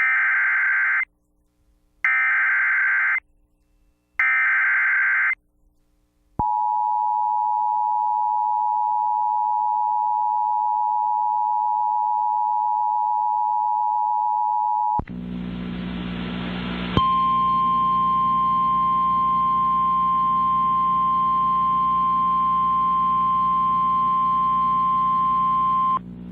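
Emergency Alert System broadcast over FM radio, signalling a flash flood warning: three one-second bursts of screechy SAME data header, then the two-tone EAS attention signal held about eight and a half seconds. About two seconds of hiss and hum follow, then the single steady 1050 Hz NOAA Weather Radio warning tone for about nine seconds.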